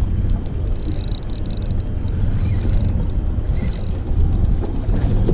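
A steady low rumble, with scattered light clicks and rattles as a spinning reel and line are handled.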